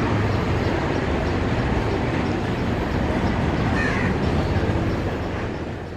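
Passenger train's coaches rolling away over the track, a steady rumble of wheels on rails that fades out near the end. A short bird call about four seconds in.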